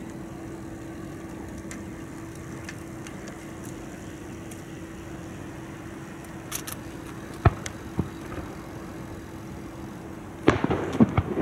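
Fireworks going off: two single sharp bangs about two-thirds of the way in, then a quick run of bangs and crackling near the end. A steady low hum runs underneath.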